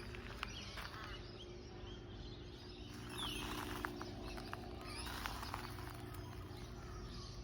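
Birds calling outdoors: scattered short chirps and a sweeping call about three seconds in, over a steady low hum.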